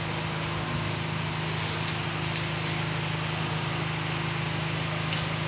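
Steady room noise: an even hiss with a low, steady hum underneath.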